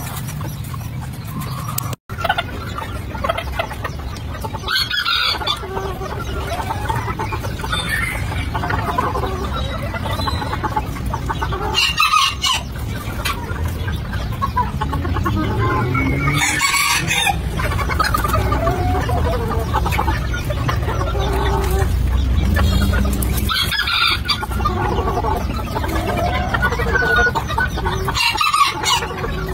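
Bantam chickens calling: roosters crow about five times, several seconds apart, with clucking between the crows. The sound cuts out briefly about two seconds in.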